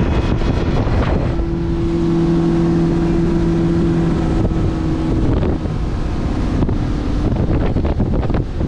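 Outboard motorboat under way: a steady engine hum that fades a little after five seconds, over wind buffeting the microphone and water rushing past the hull.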